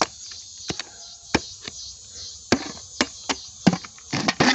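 A small hand hoe chopping into soil: about ten sharp, irregular strikes as it digs out a metal detector target.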